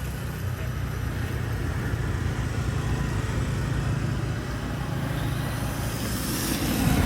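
Small petrol engine of a 1/4-scale RC motorcycle running steadily, getting louder near the end.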